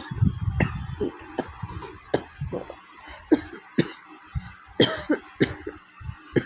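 A woman coughing over and over, about ten short coughs spaced roughly half a second to a second apart: a real, hard cough from a cold and fever, which she calls a terrible cough.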